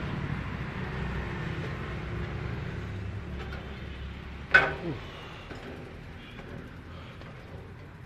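Low steady rumble of street traffic, fading after the middle. About four and a half seconds in, one loud sharp sound drops quickly in pitch.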